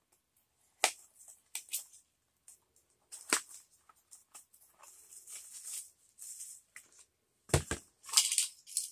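A folding knife slitting open a small cardboard product box: scattered clicks and scraping, then two sharp knocks about three-quarters of the way through, followed by cardboard and paper rustling as the box is pulled open.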